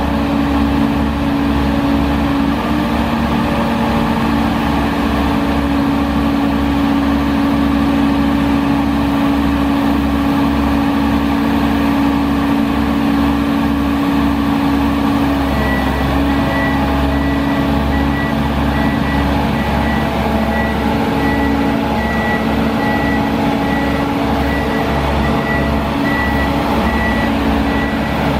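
Sandvik DX680 crawler drill rig's Caterpillar C7 diesel engine running steadily as the rig travels on its tracks. From about halfway, a travel alarm beeps repeatedly in an even rhythm.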